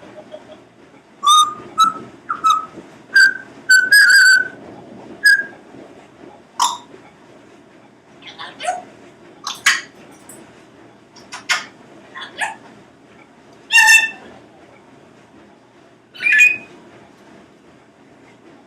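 Congo African grey parrot whistling a quick run of about eight short notes, then giving scattered short calls and clicks.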